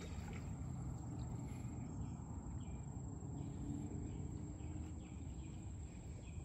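Quiet outdoor ambience by a river: a faint, steady low rumble with a thin, steady high tone above it and no distinct events.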